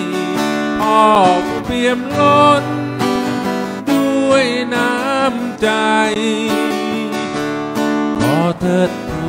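A man singing with a wavering voice over his own strummed acoustic guitar, played live through a stage sound system.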